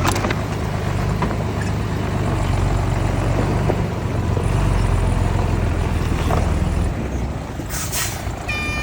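Heavy earthmoving machine's diesel engine running steadily with a deep, low drone. A brief hiss comes near the end.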